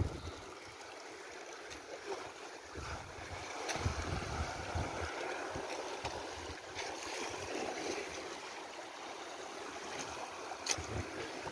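Sea water lapping and sloshing around a small outrigger boat, with gusts of wind on the microphone and a few light clicks.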